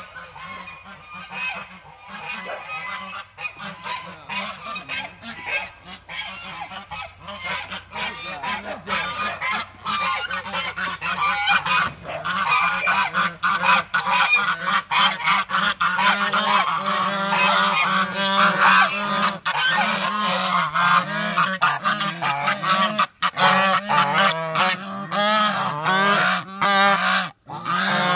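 A flock of white domestic geese honking, the calls getting louder and more frequent through the second half as they crowd close.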